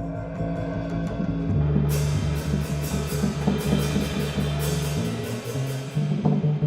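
Live instrumental jazz: double bass holding long low notes under a drum kit, with cymbals coming in about two seconds in and played in quick repeated strokes.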